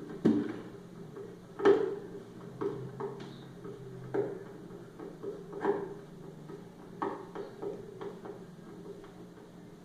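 Irregular sharp knocks and clicks of hand work on a speaker box, several strikes spaced about a second apart, the loudest near the start and about two seconds in.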